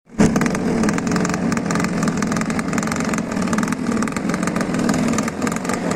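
An engine running steadily, with rapid, even pulsing.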